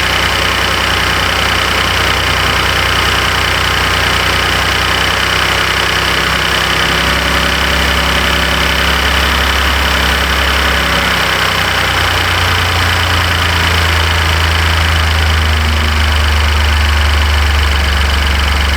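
Ford F-150's twin-turbo EcoBoost V6 idling steadily soon after start-up, its low engine note shifting slightly about seven seconds in and again about twelve seconds in.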